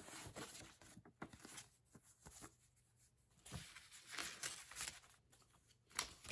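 Soft rustling and crinkling of thick, aged paper and fabric-reinforced journal pages being handled and turned, in a few short bursts that are loudest in the second half.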